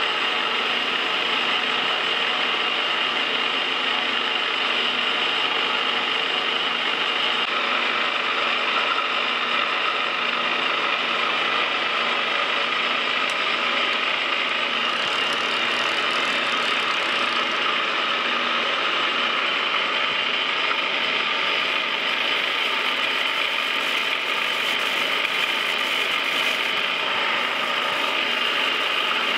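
Metal lathe running steadily at low speed with its gears driving the carriage under power feed, a single-point tool making a light threading pass on a left-hand modified square-thread feed screw steadied by a follow rest. Faint rapid ticking joins in over the last several seconds.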